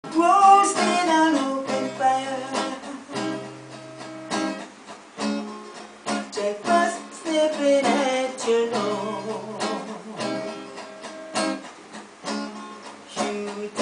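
Steel-string acoustic guitar strummed in a reggae rhythm, with a man's voice singing over it in places.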